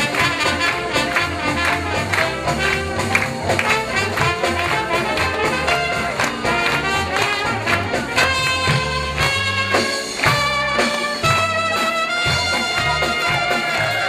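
Trumpet playing the lead line over a live band, with the drums keeping a steady beat. From about eight seconds in, the trumpet holds a run of long, sustained notes, each stepping to a new pitch.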